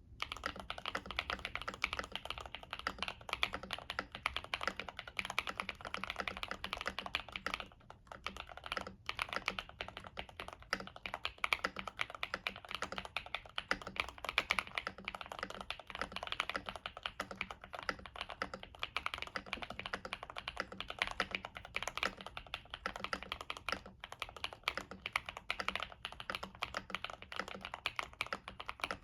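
Kbd67 Lite mechanical keyboard with stock Gateron CM switches, an FR4 plate and Cherry-profile keycaps, tape-modded and case-dampened, being typed on steadily: a fast, continuous stream of key clacks, with a brief pause about eight seconds in.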